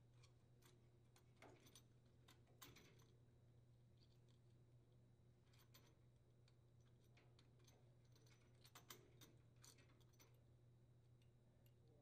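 Near silence with faint, scattered small clicks: wire spade connectors being pulled off and pushed onto the terminals of a furnace fan limit switch, with a cluster of clicks about two seconds in and another near nine seconds.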